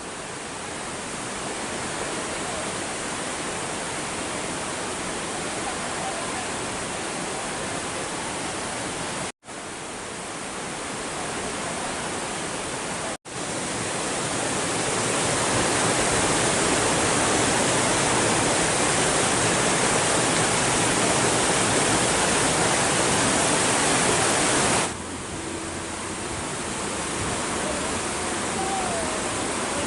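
The steady rushing roar of the Ponot waterfall, a dense even hiss of falling water. It cuts out abruptly twice, about 9 and 13 seconds in. It grows louder from the middle and falls back suddenly a few seconds before the end.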